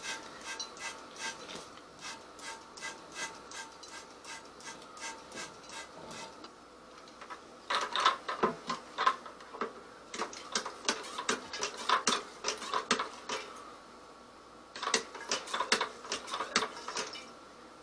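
A plastic trigger spray bottle squirting sanitiser into a glass jug, a quick series of spritzes about three a second. From about seven seconds in, a plastic auto-siphon is pumped by hand in a plastic bucket of plum wine must: three bursts of sharp plastic clattering and sloshing as the siphon is primed.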